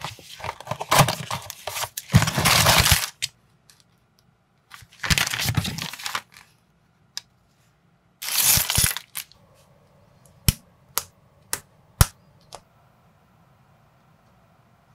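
Cardboard packaging of a small building-brick set being torn open and crinkled in three loud bursts, then about five sharp clicks of plastic minifigure parts being pressed together.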